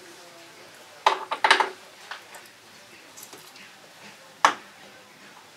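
Sharp metallic clanks from around the steam locomotive's footplate and tender: a quick run of clanks about a second in, then a single louder clank with a brief ring near the end.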